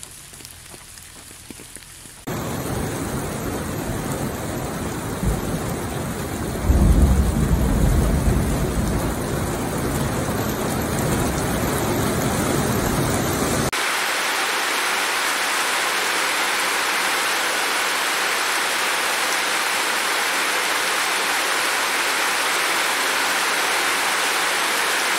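Rain falling, in three segments that change abruptly: a quieter stretch, then heavier rain from about two seconds in with a low rumble of thunder swelling around seven seconds, then from about fourteen seconds a steady, even hiss of heavy rain without the low rumble.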